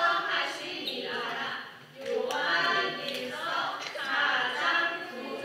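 A group of young children singing a praise song together.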